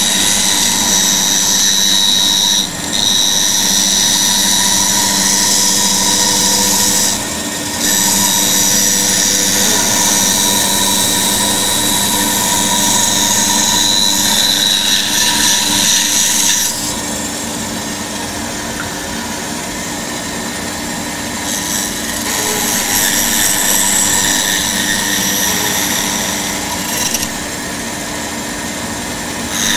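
Bandsaw running steadily with its blade cutting through a thin wooden board, a high hiss over the machine's hum. The cutting noise drops out briefly a few times, and for a longer stretch a little past the middle, where the saw runs on with the blade out of the wood.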